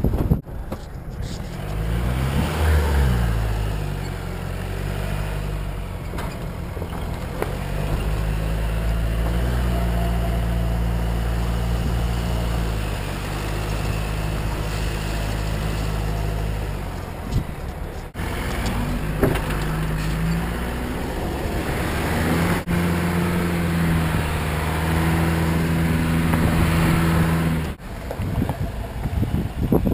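Jeep Wrangler JK's diesel engine running under load while towing a caravan through soft sand. Its pitch rises and falls about two seconds in, then holds a steady drone, broken briefly several times. The drone is mixed with a rushing noise of tyres and wind.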